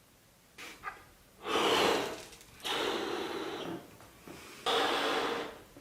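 Three long breathy sounds, each about a second, like heavy breaths, with a faint click just before the first.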